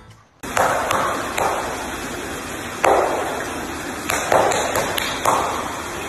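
Harbor seal splashing and slapping the water with its flipper in a shallow aquarium pool: five sharp slaps, each with a short splash, at uneven intervals over a steady hiss.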